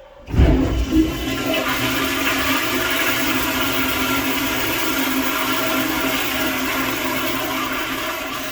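Sloan flushometer valve on a commercial toilet flushing: a sudden surge of rushing water that runs strongly for about eight seconds and eases off near the end. This is a test flush after the worn vacuum breaker assembly was replaced, with no leak.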